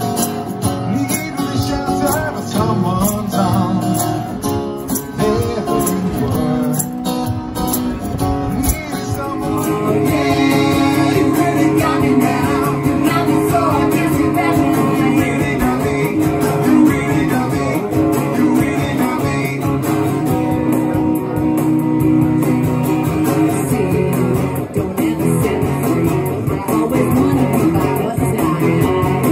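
Live acoustic guitar strumming with singing voices, a tambourine shaking on the beat for the first several seconds. About nine seconds in the music changes to another song: guitar with held, sustained singing and no tambourine.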